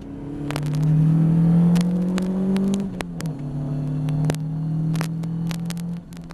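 Ginetta G40 race car's engine heard from inside the cockpit under hard acceleration. The note rises, drops sharply at an upshift about three seconds in, climbs again, then falls away near the end as the throttle is lifted. Scattered sharp clicks sound over it.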